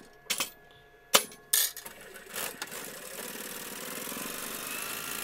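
A few sharp clicks and knocks in the first second and a half, then an electric sewing machine starts about two seconds in and runs steadily, stitching along a marked line.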